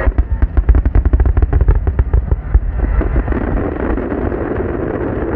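Aerial fireworks shells bursting in a rapid barrage, a quick string of loud booms several a second for about the first three seconds. The booms then merge into a continuous rumble.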